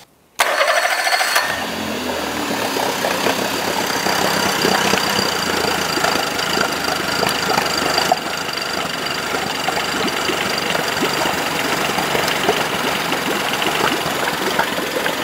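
Honda BF40D three-cylinder four-stroke outboard motor comes in suddenly about half a second in, a little louder for the first second or so, then idles steadily.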